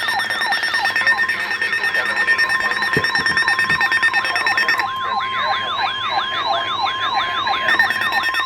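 Several weather alert radios sounding their alarms at once for a winter storm warning: rapid, repeating, falling siren-like chirps layered over steady beeping tones. A long steady alert tone comes in about a second in and stops near the end.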